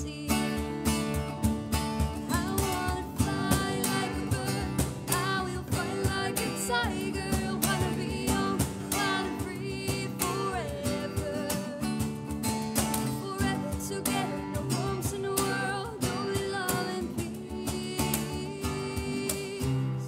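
A small acoustic band playing a singer-songwriter song: strummed acoustic guitar, acoustic bass guitar and a cajón keeping a steady beat.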